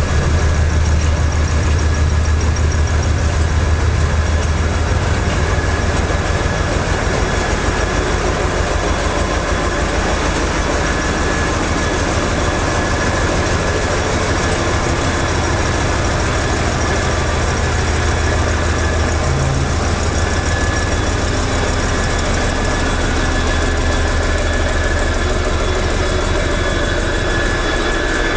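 A 2TE10M diesel locomotive's two-stroke opposed-piston diesel running steadily: a heavy low rumble with a thin, steady high whine above it.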